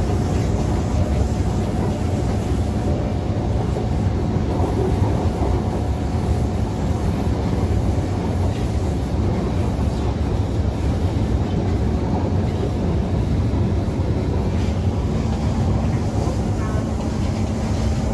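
Kawasaki C151 MRT train with permanent-magnet synchronous traction motors running along the line, heard from inside the car: a steady rumble of wheels on rail with a faint, even motor whine.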